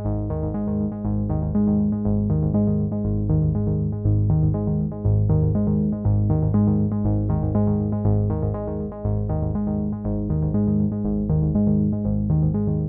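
Background music: synthesizer and keyboard playing short notes to a steady beat.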